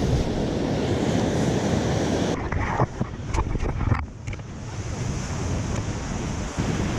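Sea surf washing against coastal rocks, with wind buffeting the microphone; a few short clicks sound around the middle.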